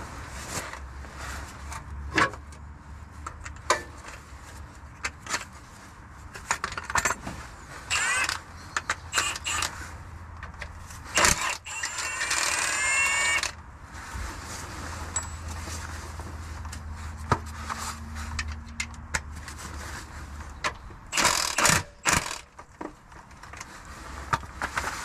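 Metal clinks and clatter of hand tools and sockets working under a car. About eleven seconds in, a cordless power tool runs for about two seconds with a rising whine, turning a 19 mm socket on a lower bell housing bolt to undo the gearbox for a clutch replacement.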